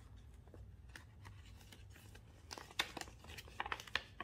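Paper banknotes rustling and a translucent cash envelope crinkling as bills are slid into it, with a cluster of crisp crackles in the second half.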